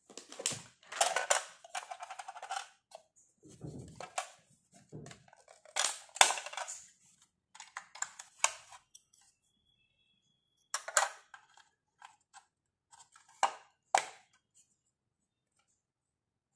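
Small hard-plastic toy pieces being handled on a tabletop: irregular clicks, taps and short rattles, with a few duller knocks about four seconds in. Among them, a pink toy microwave is handled and set down.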